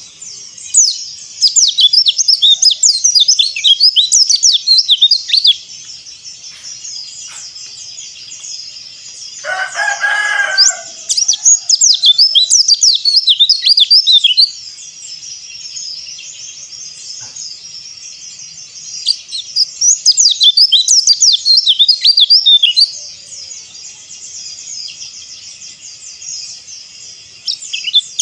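White-eye (pleci) singing in fast runs of high, twittering chirps, three runs of about four to five seconds each, with fainter twittering between them. About ten seconds in, a short lower-pitched call, like a rooster crowing, sounds once.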